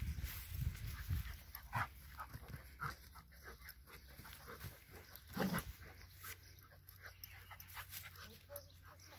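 Old English Sheepdog and puppy playing: scattered short dog sounds, the loudest about five and a half seconds in.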